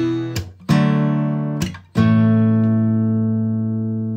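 Intro music: a guitar chord ringing, a new strummed chord under a second in, and a last one at about two seconds left to ring out and slowly fade.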